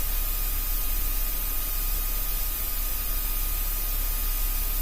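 Steady aircraft cockpit noise during an approach: an even hiss over a low drone, with a thin high tone held throughout and no changes.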